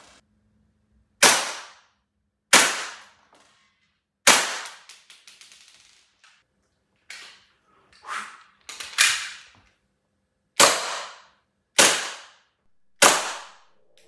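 BB gun firing repeatedly: about nine sharp cracks, roughly one every second or so, a few of them fainter.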